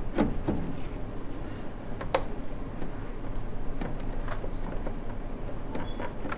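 Plastic replacement lamp cartridge being pushed and worked into its bay in a DLP rear-projection TV: scattered plastic clicks and knocks, the sharpest about two seconds in, as its plug is lined up with the socket. A steady low hum runs underneath.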